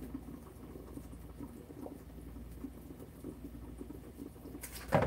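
Hands working and shaping cornmeal dumpling dough, faint soft patting and squeezing, then a single sharp knock against the plastic mixing bowl near the end.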